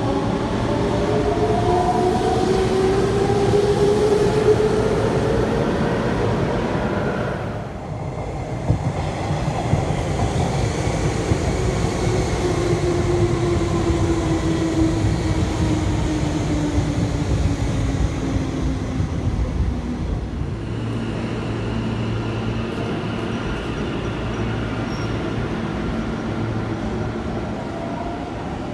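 Hanshin Railway electric commuter trains, one clip after another. First a train pulls into the station, its motor whine falling in pitch over the rumble of the wheels as it slows. After a cut about 8 seconds in, a second train runs past with another long falling whine. From about 20 seconds in, a third train at the platform gives a steadier low hum.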